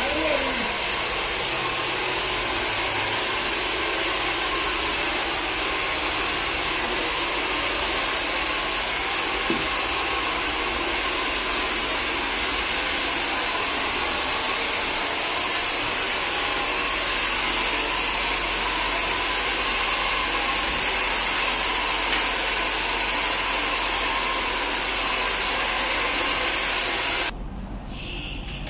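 Hair dryer blowing steadily, a loud even rush of air, cutting down sharply near the end.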